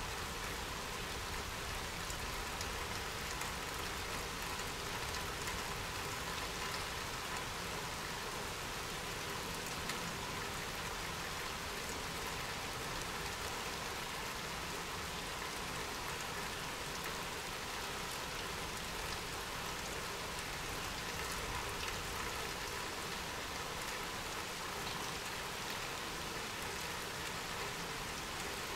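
Steady rain: an even, unbroken hiss of many drops falling.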